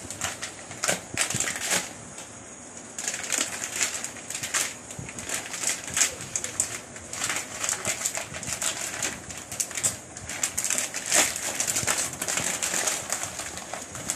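Crinkling and rustling of a plastic spaghetti bag as it is snipped open with scissors and handled, in irregular crackles, over a steady faint hiss.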